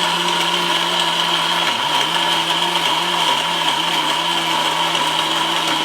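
A 1600-watt mixer grinder's motor running at full speed, grinding wet turmeric into a paste with a steady high whine. The pitch dips briefly about two seconds in and then wavers slightly as the load shifts.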